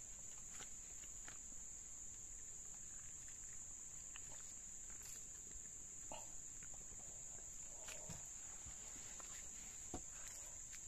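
Steady high-pitched drone of forest insects, with scattered faint clicks and knocks.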